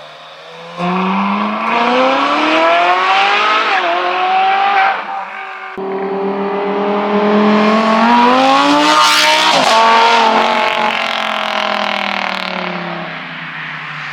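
Supercar engine accelerating hard, its pitch climbing in two surges with a brief dip between shifts, then falling away as the car drives past.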